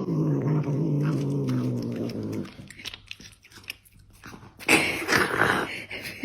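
A pet animal's drawn-out low call, falling slightly in pitch, for about two and a half seconds, followed by scattered clicks and a louder rustling noise near the end.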